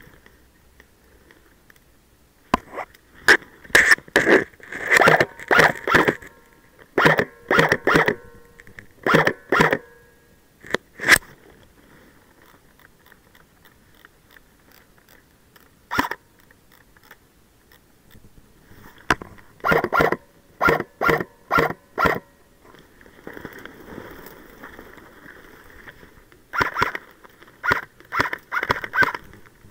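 Airsoft rifle firing: sharp clacks in quick strings of shots, clustered in several volleys with pauses between.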